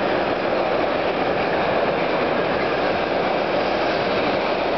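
Freight train wagons passing at speed: a steady, even rumble of wheels on the rails, with no distinct knocks or changes.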